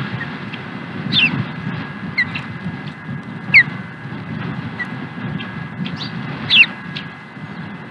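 Ospreys at the nest giving a series of short, high whistled chirps, each sliding down in pitch, about four loud ones a second or more apart with fainter ones between, over a steady low background rumble.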